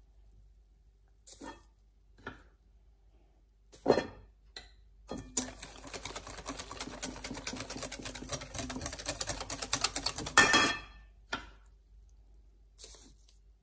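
Wire whisk beating semolina cake batter in a glass bowl. There are a few scattered knocks and taps, then from about five seconds in a run of rapid whisking strokes for about five seconds, rattling against the bowl and ending in a louder knock.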